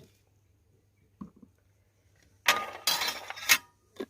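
Kitchen dishes clinking and rattling for about a second while spices go into the marinade, with a couple of light knocks before it and one knock near the end.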